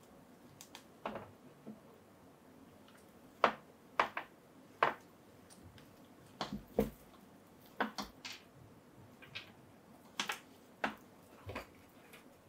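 Irregular sharp clicks and taps of hard plastic being handled: a sixth-scale action figure and its small parts knocking together and against a surface, about fifteen short knocks with gaps between them.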